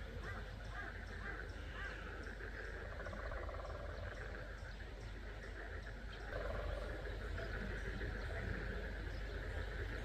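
Frogs giving mating calls: a continuous chorus of croaking calls with a rapid pulsed trill, getting louder about six seconds in.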